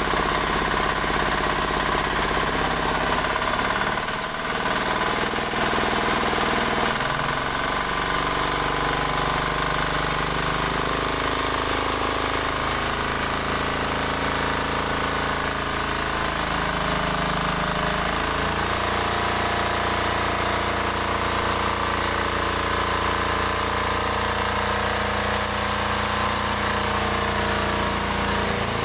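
18 hp diesel engine on a new sawmill running steadily under test, its pitch shifting up and down to new settings several times.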